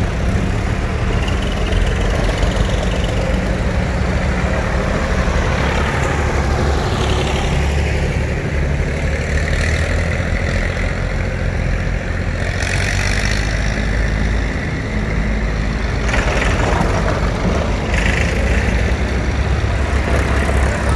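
Vintage tractor engines running at low revs, a steady, deep engine note.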